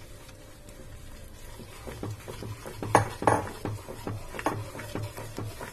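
Spatula stirring and scraping a thick, crumbly mix of powdered fried chana dal and hot sugar syrup in a non-stick pan, in repeated strokes that start about two seconds in, about two or three a second, the loudest near the three-second mark.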